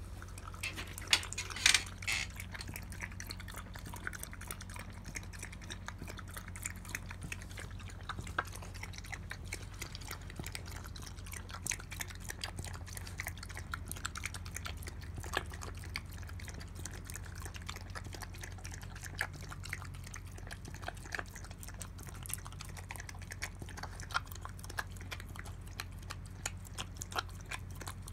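A dog lapping milk from a ceramic bowl: rapid, irregular wet tongue-laps and clicks that keep on throughout, a few louder clicks about one to two seconds in.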